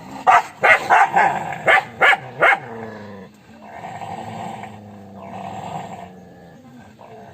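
A dog barking rapidly, about seven sharp barks in quick succession, then two longer growls of about a second each.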